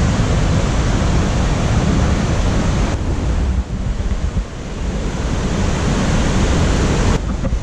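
Loud, steady rush of a waterfall and river running high in flood, with wind buffeting the microphone.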